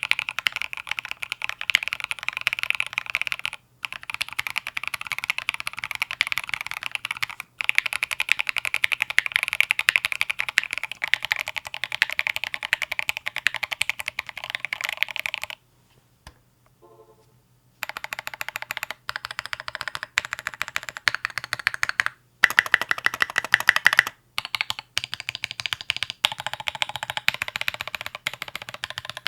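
Fast, continuous typing on a mechanical keyboard with Obsidian switches and tall SA-profile keycaps. The clicks come in a dense stream, broken by a few brief pauses and one gap of about two seconds near the middle.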